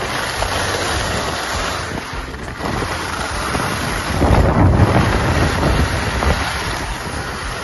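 Wind buffeting the phone's microphone over the hiss of skis sliding on groomed snow during a run, with a stronger gust of low wind rumble about four seconds in.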